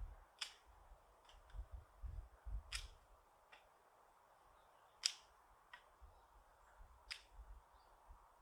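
Faint, sharp clicks or snaps, about eight of them at irregular intervals, the loudest about five seconds in, over a low rumble.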